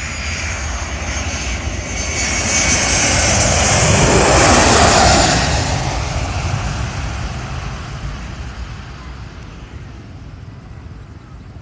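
Twin-engine jet airliner passing low on its landing approach. The engine roar and a high whine build to a peak about five seconds in, then fade away.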